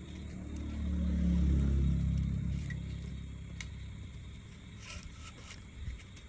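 A low engine-like hum that swells and then fades over about three seconds, followed by a few faint clicks near the end.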